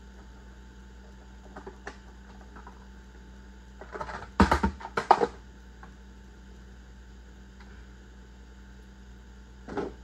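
Clicks and clatter of hand work on a chainsaw: a few light clicks, then a quick burst of louder knocks and rattles about four seconds in, and one more click near the end, over a steady low hum.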